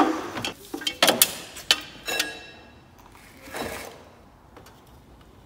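Metal hand tools, a breaker bar and socket on the exhaust camshaft sprocket bolt, clinking and knocking during the angle-tightening stage: several sharp metallic clicks with a brief ring in the first two seconds, then a softer rub about three and a half seconds in.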